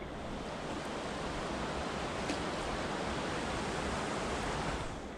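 Rushing river water, a steady hiss that fades back sharply near the end.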